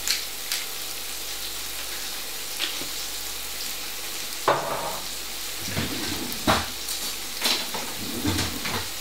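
Chunky leeks sizzling steadily in hot chicken fat in a frying pan. From about halfway through, a utensil knocks and scrapes in the pan a few times as they are stirred.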